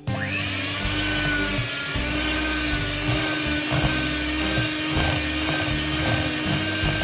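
Electric hand mixer running steadily, its wire beaters whipping an egg into creamed butter and sugar in a glass bowl. The motor whines up to speed at the start and cuts off abruptly at the end.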